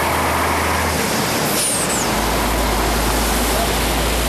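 Truck on the move: steady engine hum and road noise, the engine note dropping about two seconds in, with a brief high falling whistle just before.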